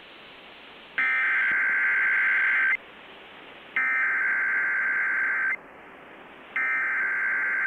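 Three bursts of Emergency Alert System SAME header data tones received over NOAA Weather Radio, each a little under two seconds long and about a second apart, with radio static hiss between them. The bursts are the coded header that opens an alert, here a flash flood warning.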